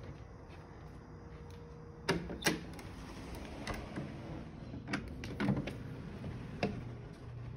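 A handful of sharp, irregular clicks and light knocks from a paneled door's knob and latch being handled as the door is moved, the two loudest about two seconds in.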